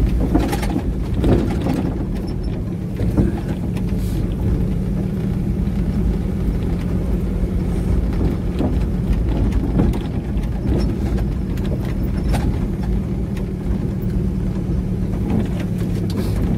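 Pickup truck engine running steadily under way on a rough dirt track, with scattered knocks and rattles from the truck jolting over bumps.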